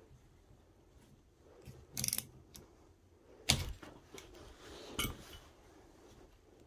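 Metal clicks and knocks from a socket ratchet and bar-end parts being handled at a scooter handlebar. A short rattle of clicks comes about two seconds in, the loudest sharp knock about a second and a half later, and another knock about five seconds in.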